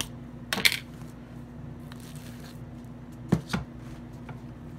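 Plastic butter tub being opened and butter scooped out with a table knife: a couple of sharp plastic clicks about half a second in, and two more knocks of the knife against the tub or plate a little past three seconds in.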